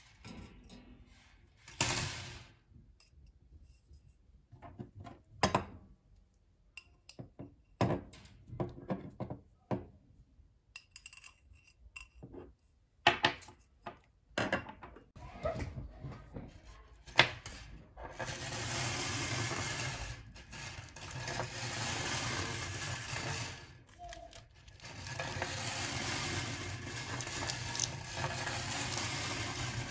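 Bare copper wire coil being handled and bent: scattered metallic clicks and rattles as the springy turns knock together and against a short copper tube. About two-thirds of the way through, a steady scraping noise takes over as the coil is worked into a closed loop.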